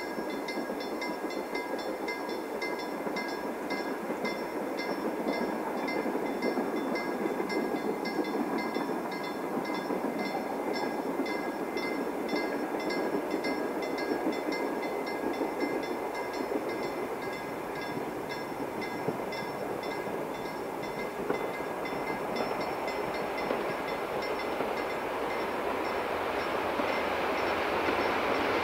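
Wood-fired Hv3 steam locomotive approaching from a distance, a steady rumble that grows louder over the last few seconds. Over it runs a rapid, even, high-pitched ticking.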